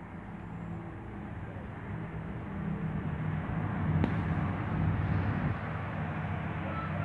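A motor vehicle's engine running with a low, steady hum that grows louder toward the middle, and one sharp click about four seconds in.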